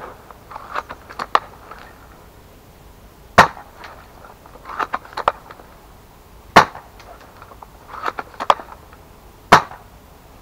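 SSG24 spring-powered bolt-action airsoft sniper rifle, still without an airbrake, fired three times about three seconds apart. Before each sharp shot come the lighter clicks of the bolt being cycled.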